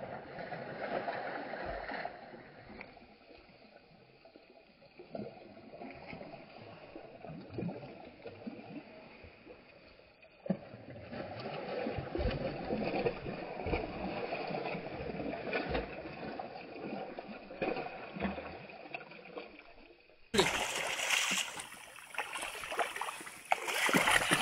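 A hooked rainbow trout thrashing and splashing in shallow water at the shoreline as it is drawn in, in irregular bursts; the splashing sounds dull for most of the stretch and turns louder and sharper about 20 seconds in.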